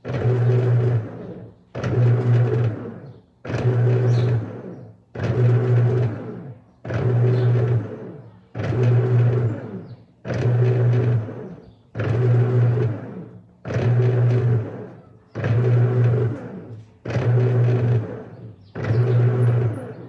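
Electrossul 15 kg top-loading washing machine agitating in an empty tub. The motor drives the agitator in even strokes about every 1.7 seconds. Each stroke is roughly a second of motor hum and rattle that fades as the agitator coasts before reversing.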